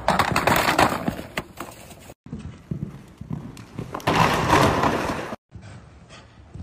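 Horse hoofbeats on arena footing, with thuds and a noisy clatter as a horse crashes into a show jump. The sound cuts off abruptly twice as the footage switches between horses.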